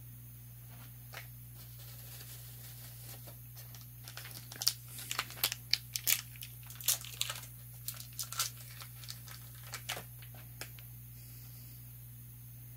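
Light, irregular clicks and crinkling rustles of hands handling small engine parts, clustered from about four to eleven seconds in, over a steady low hum.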